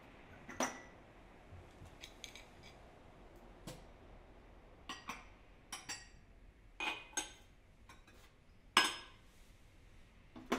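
Scattered light clinks and taps of small hard objects, about a dozen, several ringing briefly. The loudest comes near the end.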